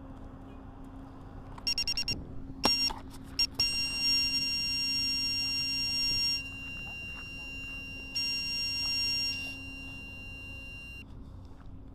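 Electronic beeping over a steady low hum: a few short beeps, then a long held beep lasting about three seconds, and after a pause another held beep of about a second.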